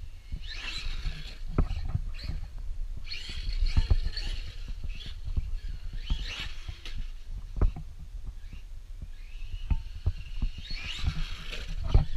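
Traxxas Maxx RC monster truck driving in throttle bursts: its brushless electric motor and drivetrain whine up four times, over many low knocks and thumps.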